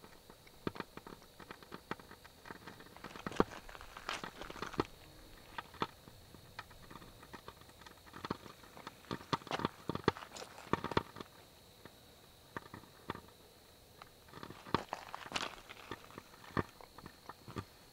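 Footsteps crunching and shifting on loose river cobbles and gravel, in irregular bunches of sharp clicks with short pauses between them, over a faint steady high whine.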